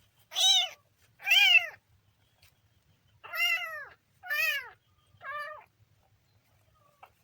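A kitten meowing five times in high calls that rise and fall in pitch: two in quick succession, a pause of about a second, then three more, the last one quieter.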